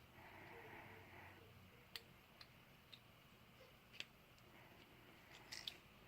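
Near silence with a few faint, sparse clicks and taps from small parts being handled during a phone repair.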